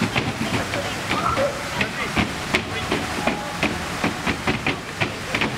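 Plaza fountain jets splashing into their basin, a steady hiss of falling water with many small splashes. People's voices are mixed in.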